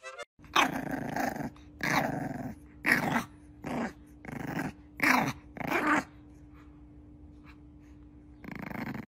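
Young bulldog-type puppy giving a quick string of about seven growly barks, then one more near the end.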